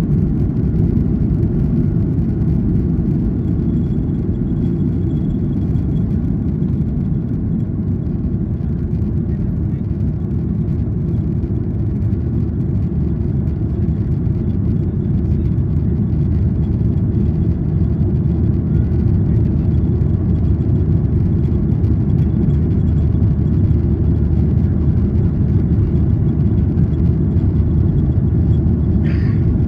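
Steady low rumble and rush of a Boeing 737-800 cabin, heard from a seat behind the wing. The jet's CFM56-7B engines are at climb power in the initial climb after takeoff.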